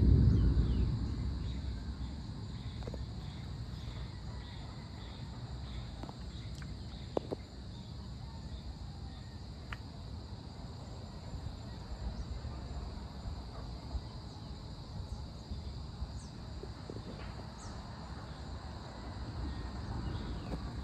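The tail of a thunder roll fades out over the first couple of seconds, leaving a steady high chorus of insects with a few short chirps. The low rumble starts to build again near the end.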